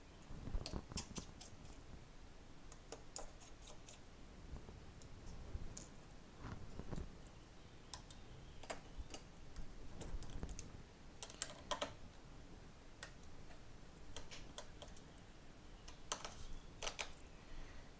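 Faint, scattered light clicks and taps of hands working on an opened iPhone 7, coming in small clusters every second or two.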